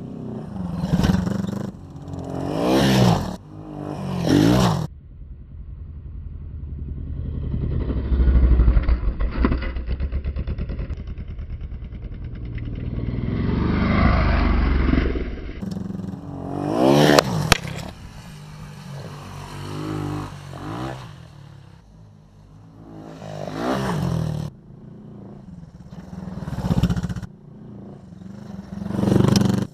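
Vintage Honda motorcycles revving and passing close several times, the engine note rising and falling with each pass as the riders take off-road jumps. A heavy low rumble through the middle, loudest as a bike flies right over.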